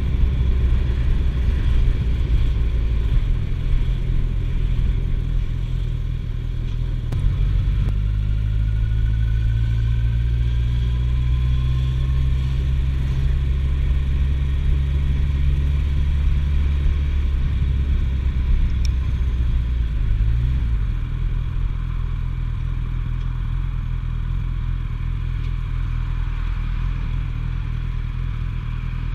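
Suzuki GSF1250S Bandit's inline-four engine running at town speed, heard from the rider's seat. The engine note rises about eight seconds in and drops back lower at around twenty seconds.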